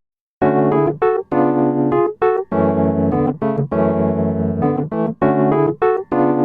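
Background music: an electric piano playing a melody of short notes and chords with brief gaps between them, starting after a moment of silence.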